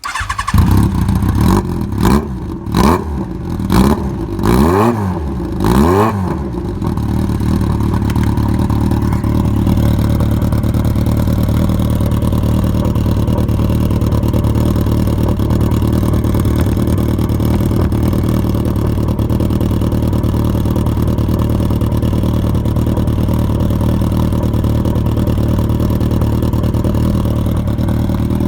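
Yamaha XJR1200 air-cooled inline-four running through an aftermarket Zess-style short-pipe exhaust: about six quick throttle blips in the first six seconds, each rising and falling in pitch, then it settles to a steady idle.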